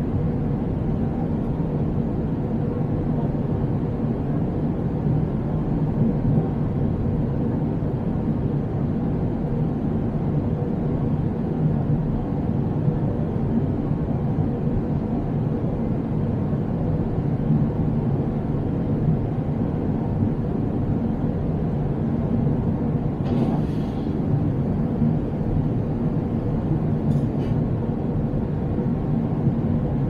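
Steady jetliner cabin noise at cruise, heard from a window seat beside the wing-mounted turbofan engine: an even low rumble of engine and airflow with a faint steady hum. Near the end comes a brief soft hiss.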